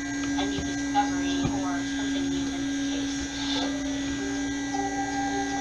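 Handheld stick blender running steadily in a cup of cold-process soap batter, a constant motor hum.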